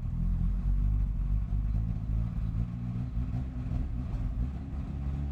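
1988 Lotus Esprit's turbocharged four-cylinder engine running at a rough, uneven idle. It does not like any throttle input, a fault suspected to lie in the throttle position sensor.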